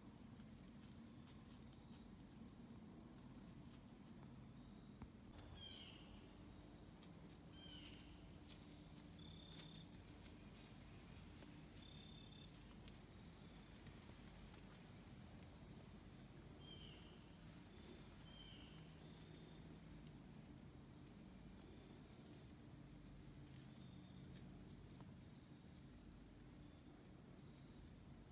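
Faint woodland insect chorus: a steady high-pitched trill, with short high chirps repeating every second or two above it and a few quieter calls lower down.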